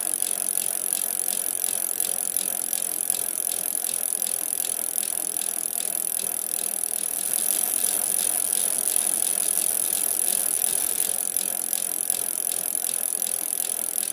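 Steady, fast mechanical rattle with a bright hiss over it, running evenly with no breaks.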